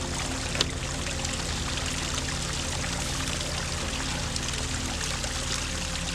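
Steady rushing noise like running water, with a single sharp click about half a second in, under soft background music.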